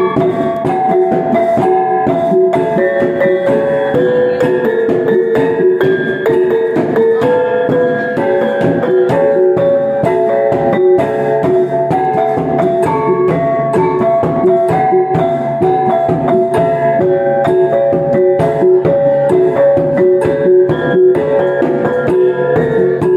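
Iban brass gong ensemble (taboh) playing: tuned brass gongs ring a busy, stepping melody over a steady stream of sharp percussion strikes.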